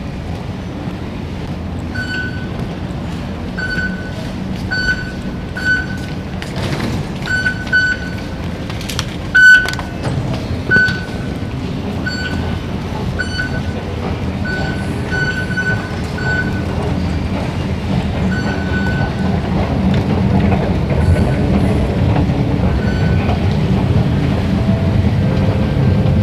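MRT station concourse ambience: a steady low rumble of station machinery that grows louder toward the end, with short, high, same-pitched electronic beeps repeating at irregular intervals through the first two-thirds, and a couple of sharp knocks about ten seconds in.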